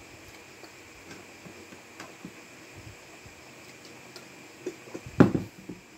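Mealtime sounds of eating and drinking at a table: faint small clicks while a man drinks from a plastic water bottle, then a short cluster of louder knocks and mouth noises about five seconds in.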